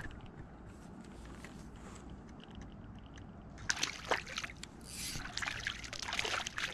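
A hooked crappie splashing and thrashing at the water's surface as it is reeled in, in irregular bursts starting about three and a half seconds in.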